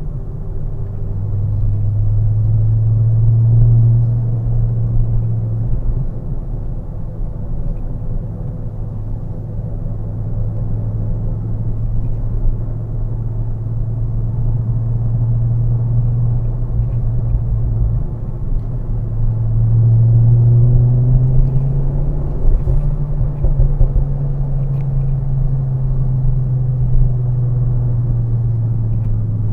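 Turbocharged car engine running under way with road rumble, a steady low drone. The engine note climbs twice as the car accelerates, about a second in and again about two-thirds of the way through.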